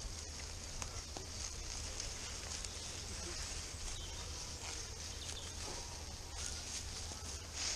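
Quiet outdoor woodland ambience: a steady low rumble of wind on the microphone, with faint scattered rustles and crunches of footsteps in dry fallen leaves.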